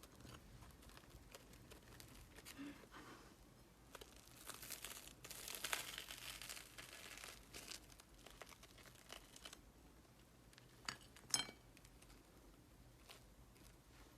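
Packaging crinkling and rustling as it is handled, busiest in the middle, with two sharp clicks about eleven seconds in.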